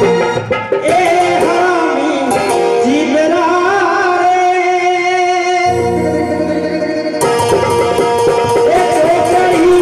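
A man singing a nirguni bhajan with long, wavering held notes over steady instrumental accompaniment.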